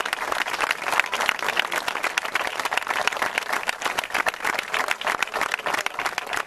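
Audience applauding, many hands clapping at once in a dense, steady stream.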